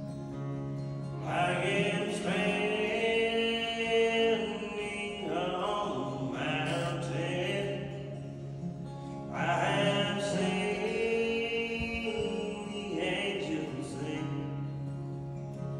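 A young man singing with his own acoustic guitar accompaniment. Sung phrases come in about a second in, again near six, near nine and a half and near thirteen seconds, over held guitar notes.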